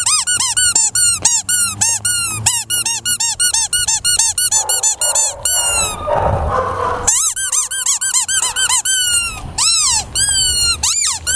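Rubber squeaky dog toy being squeaked over and over, a fast run of short squeaks that each rise and fall in pitch, several a second. After a break of a second or so in the middle, the squeaks resume more slowly.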